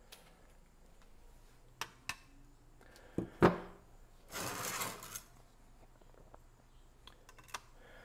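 Metal bicycle cassettes handled on a wooden workbench and a kitchen scale. There are a few light clicks, then a sharp double knock about three seconds in as one cassette is set down, then about a second of metallic rattle and scrape as the other is moved onto the scale.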